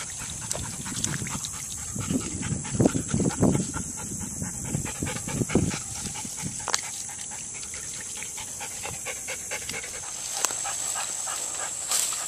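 A dog panting, with the strongest breaths between about two and six seconds in, over a steady high hiss.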